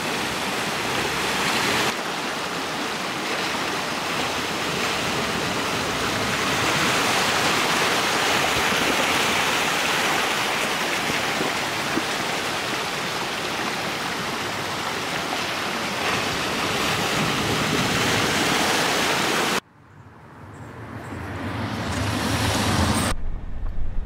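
Steady rush of flowing river water. It cuts off suddenly near the end, a quieter rush swells up, and a low engine rumble begins just before the end.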